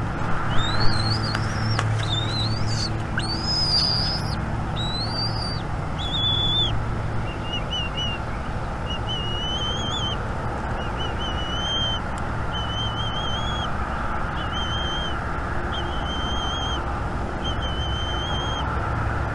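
Bald eagle calling: a run of rising, high piping whistles in the first few seconds, then shorter calls repeated about once a second, over a steady low hum.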